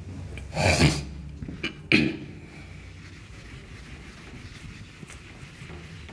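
Handheld duster rubbing across a whiteboard as writing is wiped off, with two louder strokes in the first two seconds and then fainter rubbing.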